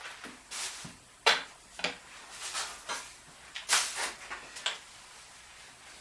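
Metal tools and generator parts clinking and scraping on a workbench in a handful of short, sharp knocks, the sharpest about a second in, stopping about five seconds in.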